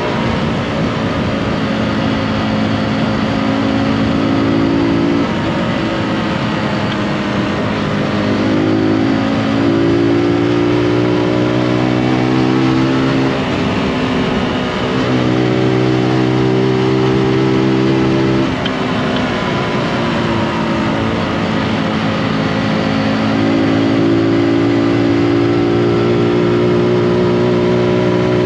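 Zontes G155's single-cylinder engine running under way, heard from the rider's seat along with wind and road noise. The engine pitch drops and climbs again several times as the revs fall and rise.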